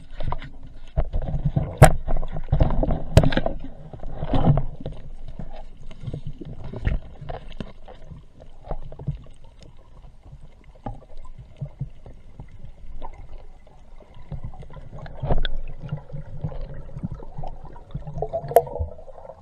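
Muffled water sloshing and gurgling heard through an underwater camera housing, busiest in the first few seconds, with a few sharp clicks, two of them a couple of seconds in and one near the end.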